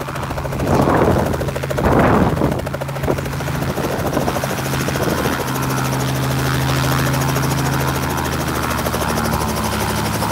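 Robinson R44 helicopter touching down from a low hover. Gusty rotor wash swells against the microphone for the first few seconds, then the engine and main rotor settle into a steady, lower hum once it is sitting on its skids.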